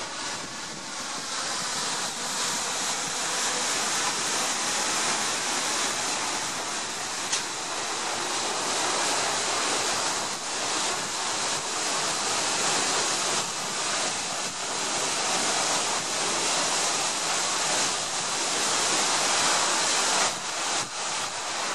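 Paddle wheels of the 1908 paddle steamer Schiller churning the water as the boat comes alongside the pier, a steady rushing splash that swells and eases.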